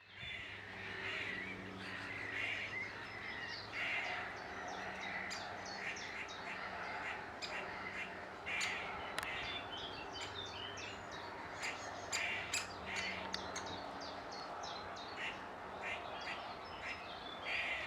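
Birds calling: many short, high chirps and calls in quick succession, over a steady low hum.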